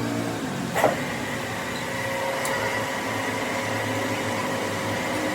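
Steady machine hum with a few steady tones, and a single sharp click a little under a second in.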